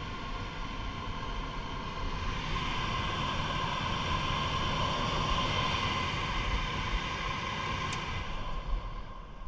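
HVAC equipment running steadily: a whooshing mechanical drone with a faint held whine, getting louder about two seconds in.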